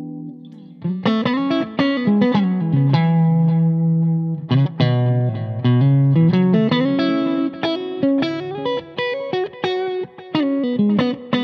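James Tyler electric guitar on its neck and middle pickups, played through a Laney IRF Loudpedal amp's clean channel with reverb and delay. A held note fades out, then about a second in a run of picked single-note melodic phrases begins, briefly pausing twice.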